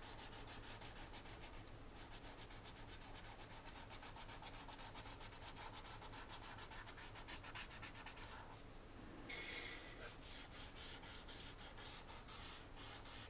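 A drawing tool rubbing back and forth on paper in quick, even strokes, several a second, as pencil shading is worked in. About eight seconds in, the strokes turn softer and more irregular.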